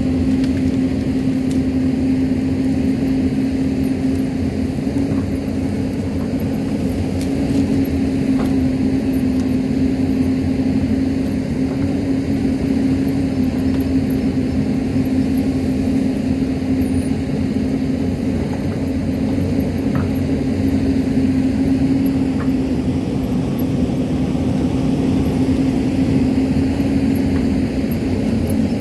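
Hyundai crawler excavator's diesel engine running steadily under working load, a constant drone with a strong steady hum, while the bucket digs into the hillside; a few faint knocks stand out here and there.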